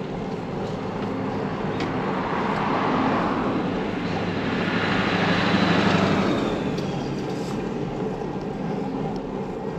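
A pickup truck passing in the opposite lane: its tyre and engine noise swells to a peak about six seconds in, then fades with a slight drop in pitch. Underneath runs the steady road and wind noise of the moving ride.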